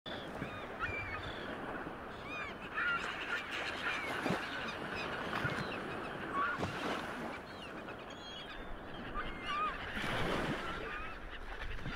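Seagulls calling, many short arched calls overlapping, over a steady wash of background noise that swells a few times.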